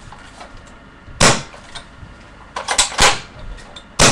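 Sharp plastic clacks and knocks from a spring-powered airsoft SA80 L85 rifle being handled: one loud clack about a second in, a quick cluster of clacks near three seconds, and another loud one near the end.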